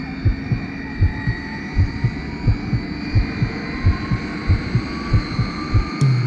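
Heartbeat sound effect from a film soundtrack: steady pairs of low thumps under a sustained droning tone, building suspense. Both cut off suddenly near the end.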